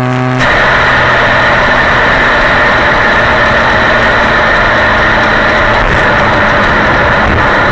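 Classic Mini's 998 cc A-series four-cylinder engine: a steady engine hum that cuts out abruptly about half a second in and is replaced by a loud, even rushing noise, with the engine still running faintly underneath.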